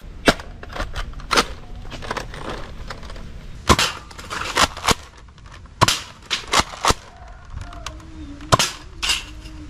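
Nerf Mega Magnus toy blaster firing: about ten sharp shots, unevenly spaced, over a low background rumble.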